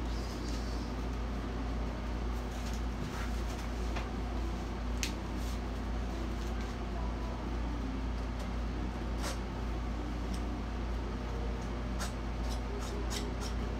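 Air conditioner running with a steady low hum. A few faint short ticks and scrapes, mostly near the end, come from brush strokes on the canvas.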